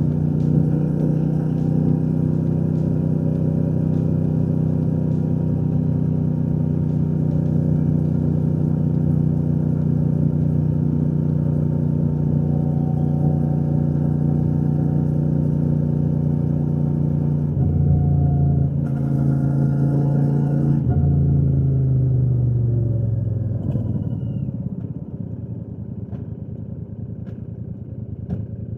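Royal Enfield Shotgun 650's parallel-twin engine and exhaust running steadily at cruising speed. From about seventeen seconds in, the engine note drops in steps as the bike slows, and it fades over the last few seconds.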